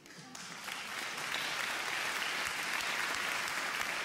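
Audience applauding, many hands clapping at once, fading in over the first second and then holding steady.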